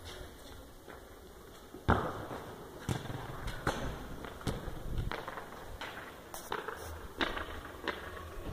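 Irregular sharp knocks and thuds. The loudest comes about two seconds in, and fainter ones follow roughly once a second.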